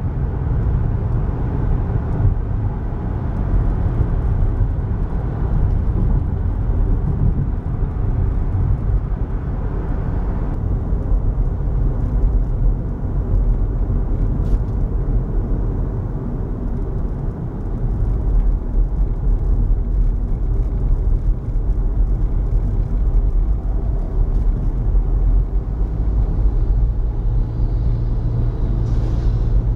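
Car driving at steady speed, heard from inside the cabin: a steady low rumble of engine and tyres on the road.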